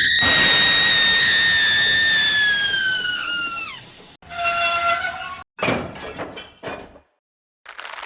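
Cartoon steam-engine whistle held on one high note over a hiss, sagging down in pitch as it dies away at about four seconds. A short lower whistle follows, then a few crashing clatters.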